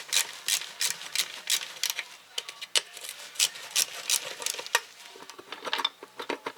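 Metal clicking and clinking of hand tools working the cover off a Lada Niva front axle differential, with a quick even run of clicks near the end.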